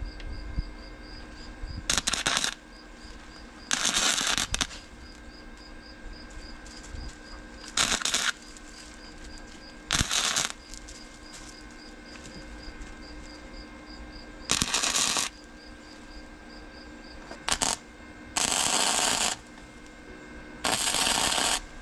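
Flux-core wire-feed welder striking short tack welds on angle-iron brackets: about eight bursts of arc noise, each well under a second to about a second long, with pauses between.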